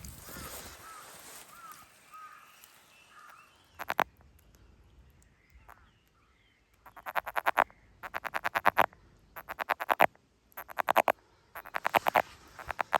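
A frog calling in a wetland: trains of rapid clicking pulses, each train under a second long, repeated about every second and a half from about seven seconds in.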